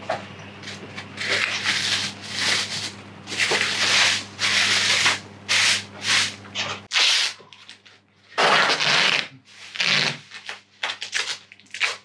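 Thin plastic bag crinkling and rustling in a series of short scrapes as it is pressed and wrapped around the end of a wall-mounted air conditioner, with masking tape pulled off the roll in a few longer rasps in the second half.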